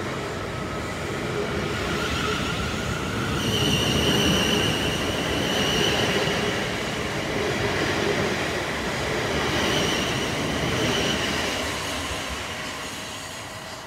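South Western Railway Class 450 Desiro electric multiple unit pulling out of the station close by: a steady rumble of wheels on rail under a slowly rising motor whine. A high-pitched whine comes in about three seconds in and returns later, and the sound fades as the train draws away near the end.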